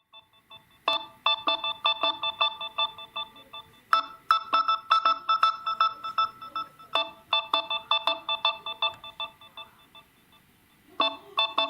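Samsung Galaxy A03s ringing with its incoming-call ringtone: a short electronic melody of quick bright notes, about five a second, repeated in phrases of about three seconds. There is a pause before the last phrase starts near the end.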